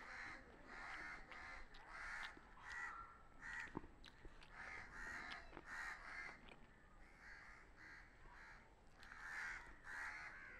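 Crows cawing repeatedly, faint, with many short caws following one another, and a few small clicks among them.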